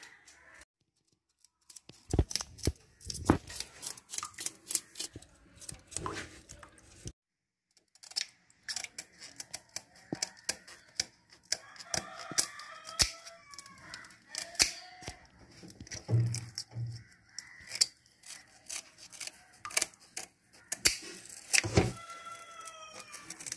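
Kitchen scissors scraping the scales and snipping the fins of a small pearl spot fish over a steel sink, in a string of quick, irregular clicks and scrapes.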